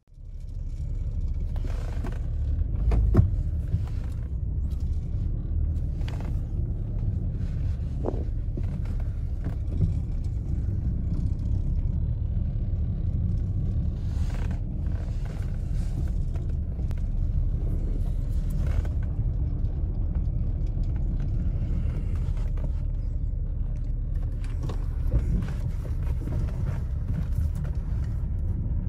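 Inside the cabin of a BMW E32 750iL on the move: a steady low rumble from its V12 engine and tyres, with scattered clicks and knocks, the loudest about three seconds in.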